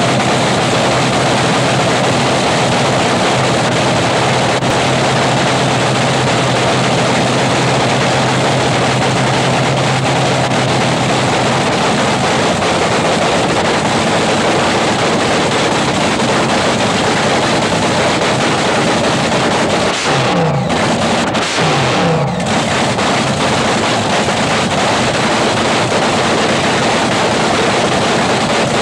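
Supercharged Top Fuel dragster engine running loud and steady during a pit warm-up, with a few short rises in pitch about twenty seconds in.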